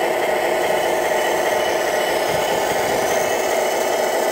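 Wedico Cat 966 RC wheel loader model running with a steady engine-like drone, with no revving or change in pitch.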